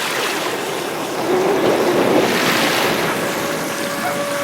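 Sea surf washing in, with wind buffeting the microphone; the wash swells about a second and a half in. Near the end a faint, steady high whine from the FT009 RC speedboat's electric motor comes in under the surf.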